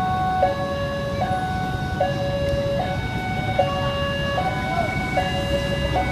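Indonesian level-crossing (PJL) warning siren sounding a two-tone alternating alarm, the high and low tones swapping about every 0.8 seconds, over a low rumble. It warns that a train is approaching.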